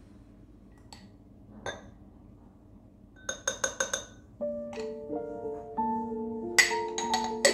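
A thin wooden stirrer clinking against a ribbed glass tumbler as a drink is stirred: a quick run of ringing clinks about three seconds in, and louder clinks near the end. Melodic background music with held notes starts about halfway through.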